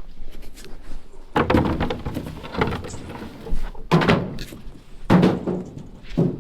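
A series of about six heavy thuds and knocks at irregular intervals, some with a short ringing after them, like things being handled and dropped or a door banging.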